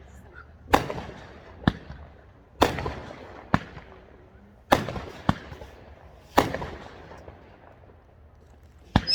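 Fireworks going off: about eight sharp bangs, roughly one a second, each trailing off in an echo, then a short lull and one more bang near the end.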